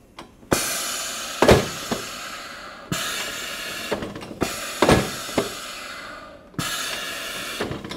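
Flexco XP power staple applicator running three times in a row, each run a couple of seconds of steady motor noise; the first two each have a sharp clack partway through. This is the first pass of a two-step install: the staples are pushed through the belt and fastener without being folded over.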